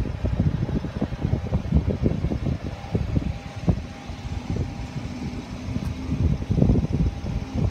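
Wind buffeting the microphone in irregular low gusts, with a faint steady hum underneath.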